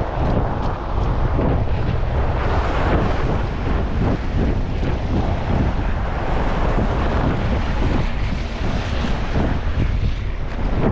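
Strong blizzard wind buffeting the microphone: a steady, heavy rumbling roar with no let-up.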